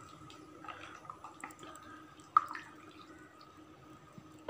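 Metal ladle stirring watery biryani masala with chicken in an open pressure cooker: soft liquid splashes and small clinks, with one sharp clink of ladle against the pot about halfway through.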